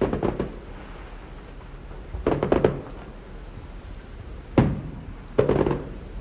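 Fireworks going off in four groups of bangs and crackling reports, about one every one to two seconds, the sharpest single bang about four and a half seconds in.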